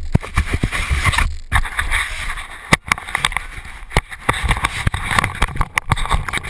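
Handling noise from a camera being moved and gripped: irregular knocks and rubbing against the body, with a brief dropout a little over a second in.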